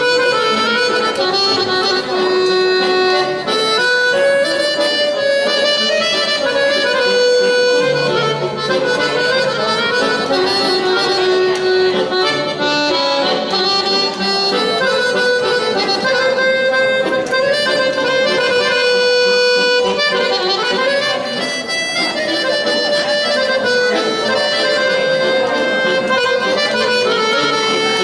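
Piano accordion played solo: a continuous melody on the treble keys over accompanying notes, changing pitch in quick steps.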